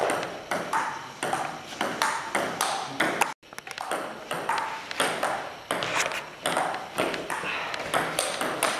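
Table tennis rally: the ball clicks back and forth off the bats and the table, several sharp knocks a second. The sound cuts out briefly a little over three seconds in.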